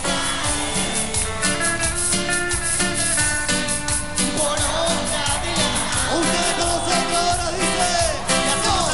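Cumbia villera band playing live: a steady, even dance beat under sustained instrument chords, with a voice singing a melody from about halfway through.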